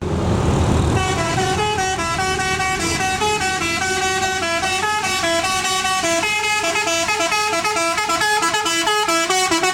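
Tour bus telolet horn playing a quick tune of several horn notes sounding together, stepping up and down in pitch, starting about a second in over the bus's engine noise.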